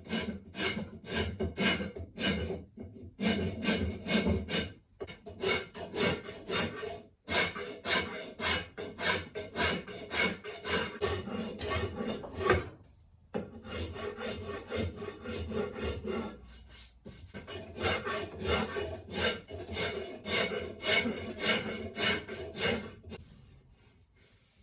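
A hand file rasping across a wooden hickory axe handle in steady back-and-forth strokes, about two a second, to thin the handle. The filing pauses briefly a few times and stops near the end.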